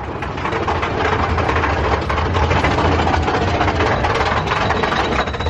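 Big Thunder Mountain Railroad mine-train roller coaster rolling along its track: a steady low rumble with dense rattling clatter.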